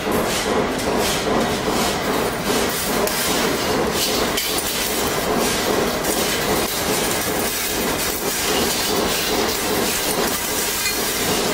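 Steady mechanical noise of running workshop machinery: a continuous hiss with faint, irregular clatter.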